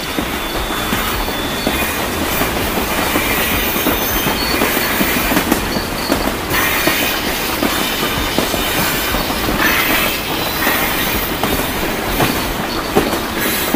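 Toy train running along plastic track, a steady rattling clatter of its wheels and motor.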